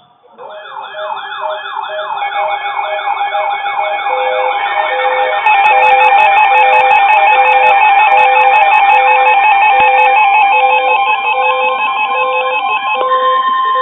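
Several emergency alert alarms sounding together: a quickly repeating rising siren sweep layered with steady tones and regular beeps about once a second. More alarms join in, and it gets louder about five and a half seconds in.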